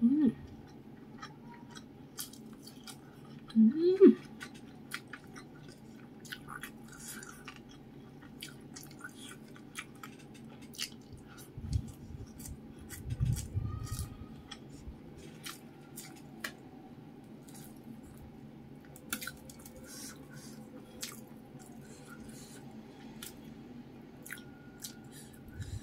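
A person chewing a mouthful of fried fish and rice with the lips closed, with many small wet mouth clicks and smacks. Two short hummed "mm" sounds, at the start and about four seconds in, are the loudest sounds.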